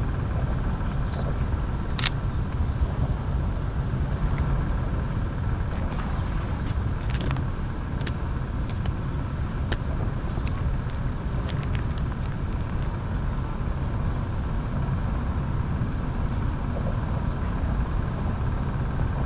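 Camera shutter clicking several times, single clicks and quick runs, most between about six and thirteen seconds in, over a steady low rumble of distant road traffic.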